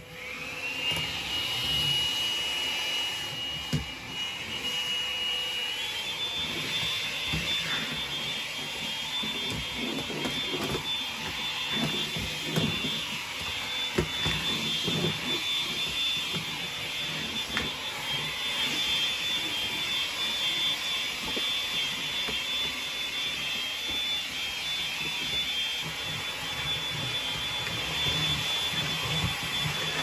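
Makita CL108 cordless stick vacuum switching on and spinning up, then running with a steady high whine that steps up in pitch about six seconds in. Its nozzle knocks and rumbles now and then as it is pushed over the wooden floor.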